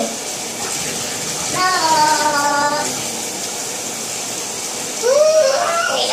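Water running and splashing in a bathtub as a small dog is washed, steady throughout. Two short vocal sounds cut across it: a held note about a second and a half in, and a brief rising one near the end.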